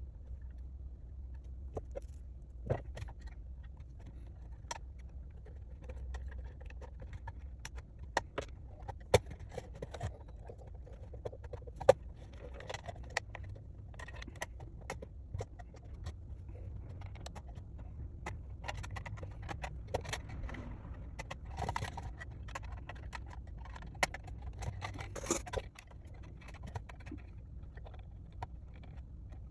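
Irregular small clicks, taps and scrapes of hands handling and fitting small 3D-printed plastic parts and light mounts, over a steady low hum.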